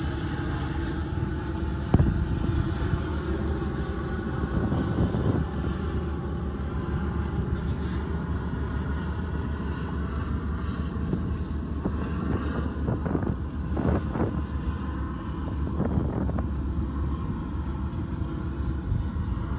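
Steady engine noise from running emergency vehicles or boats, with a low rumble and a faint hum. There is a sharp knock about two seconds in.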